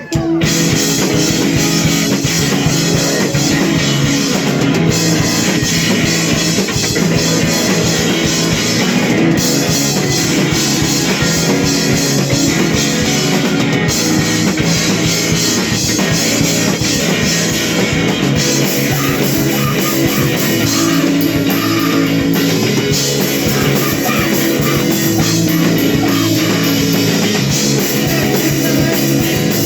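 Emo rock band playing a song live, with a drum kit and electric guitars, loud and dense without a break.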